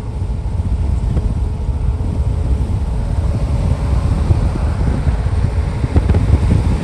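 Wind buffeting the microphone outdoors: a loud, uneven low rumble with no clear rhythm.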